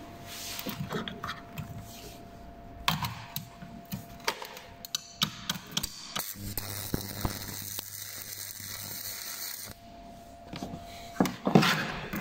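Stainless steel offcuts being clinked and knocked into place for a fillet joint, with a steady low hum for about three seconds midway. Near the end a stick-welding arc is struck with a short loud crackle as the joint is tacked.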